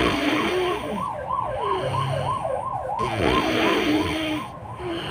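An emergency vehicle's siren sounding, its pitch sweeping up and down about three to four times a second in a fast yelp.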